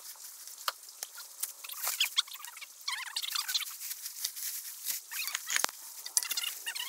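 Dry fallen leaves crunching and crackling in irregular bursts, with sharp snaps, as someone climbs and scrambles over a leaf-covered slope. The crackling grows busier from about two seconds in.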